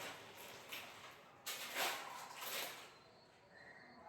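Soft rustling and handling noises of food packets and containers, in a few short bursts, the clearest about one and a half to two and a half seconds in.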